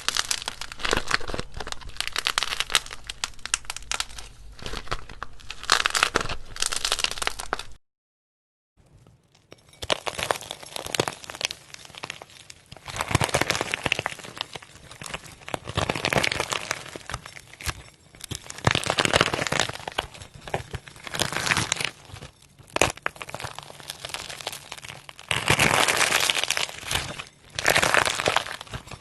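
Clay cracking and crinkling as it is handled, a dense run of crisp crackles that swells and fades every few seconds. The sound cuts out briefly about eight seconds in.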